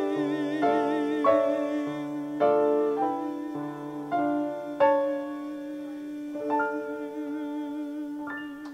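A singer holding the song's final note as one long tone with vibrato, over piano chords that change about every second and thin out towards the end.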